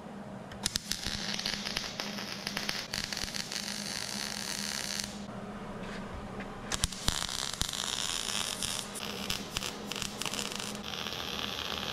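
MIG welder arc crackling as it lays weld on the sheet-steel quarter panel seam, in two runs of about four seconds each with a short break about five seconds in.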